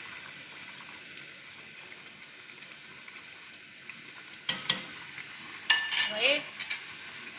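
Pot of fish fillets and vegetables cooking on the hob with a faint steady sizzling hiss, then a metal utensil clinks against the pot a couple of times, about four and a half and about six seconds in.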